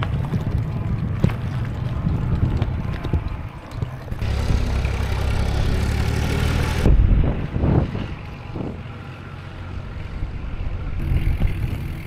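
Wind rumbling on the microphone and bicycle tyres rolling over loose gravel as an e-bike is ridden along. The sound changes abruptly about four and seven seconds in.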